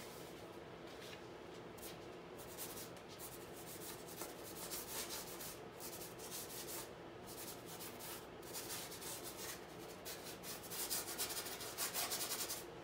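Paintbrush scrubbing paint onto a stretched canvas: repeated dry, scratchy strokes of the bristles, coming quicker and louder near the end.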